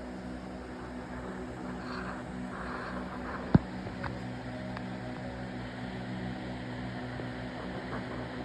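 Steady low machine hum, with a single sharp click about three and a half seconds in and a few faint ticks around it.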